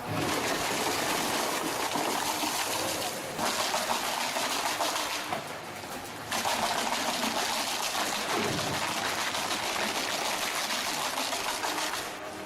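Loud, steady rushing and grinding noise of a wood-processing machine at work, shredding timber. The noise changes abruptly about three seconds in and again about six seconds in, with a brief quieter dip just before the second change.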